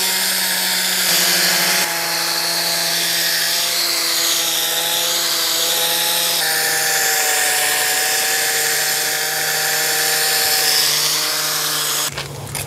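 Power drill spinning a polishing pad loaded with polishing compound against a plastic headlight lens: a steady motor whine that shifts pitch a couple of times as the load changes, then stops near the end.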